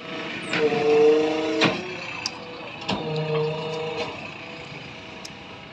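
JCB 3DX backhoe loader running, its diesel engine with a steady mechanical whine. The whine swells louder twice, for about a second each time, each swell set off and ended by a sharp knock.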